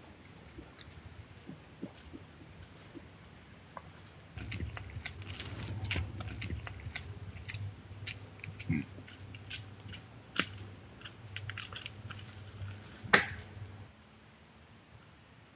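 An animal moving over leaf litter and twigs at a woodland wallow: scattered soft clicks and snaps over a steady low hum, with one sharp snap near the end.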